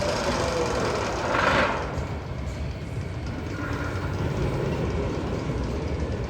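Roller coaster train rumbling along its steel track. A falling tone fades in the first moment, and a short loud rushing swell comes about a second and a half in.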